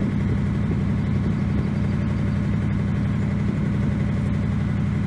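An engine idling steadily, a low even hum with a fine regular pulse.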